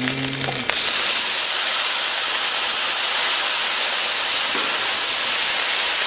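Fried rice sizzling in a hot wok over a gas burner: a steady hiss that gets louder about a second in.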